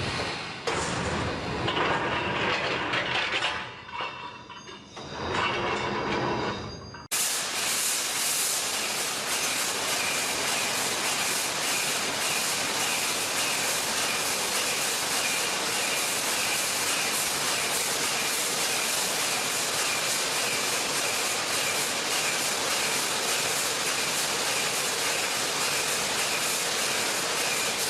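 Rebar welding machinery running: uneven, rising-and-falling mechanical noise, then after a sudden cut about seven seconds in, a steady hiss with a faint high whine.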